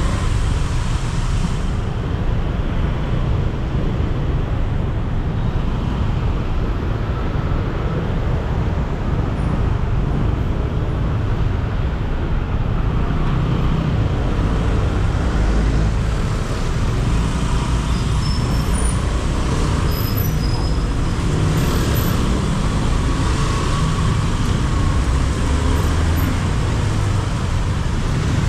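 Steady road noise from a motorbike riding through city traffic: the bike's engine and the surrounding cars and buses running together in a continuous, heavy low rumble.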